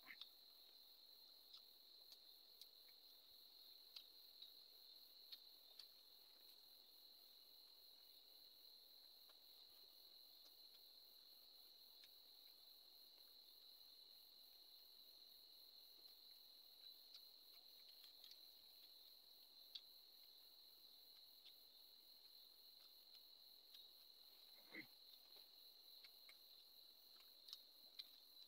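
Near silence, with a faint steady high-pitched cricket trill throughout and occasional soft clicks from eating by hand.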